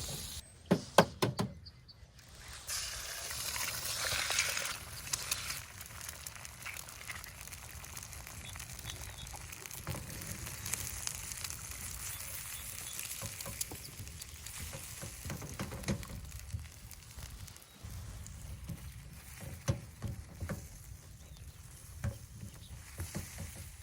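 Food sizzling as it fries in a pan over a fire, with a few sharp knocks about a second in.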